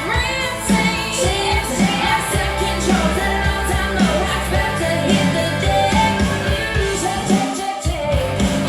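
A song with singing, drums and bass played loud through a pair of Bose S1 Pro speakers with a single Bose B1 bass module crossed over at 100 Hz. The bass and drums drop out for a moment near the end, then come back.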